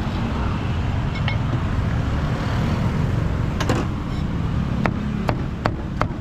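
A cleaver chopping crispy roast pork belly on a thick wooden chopping block: about five sharp chops in the second half, roughly every half second, over a steady low rumble of street traffic.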